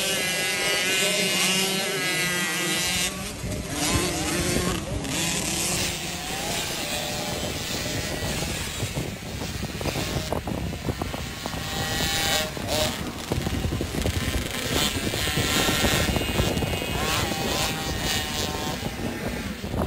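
Junior 50cc two-stroke motocross bikes racing on a dirt track, their small engines revving up and down as the riders accelerate.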